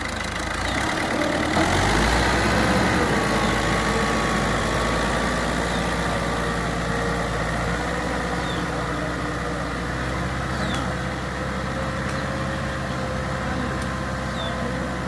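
Fiat tractor's diesel engine running, picking up revs over the first couple of seconds and then holding a steady speed.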